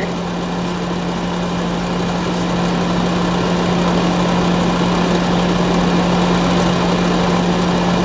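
Comfort Zone electric personal heater's fan blowing steadily on high heat: an even rush of air over a constant motor hum, growing slightly louder in the first few seconds.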